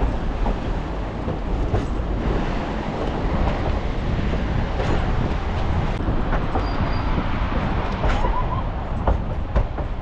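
Steady rumble and rattle of a narrow-gauge passenger train rolling along the track, heard from on board, with scattered knocks.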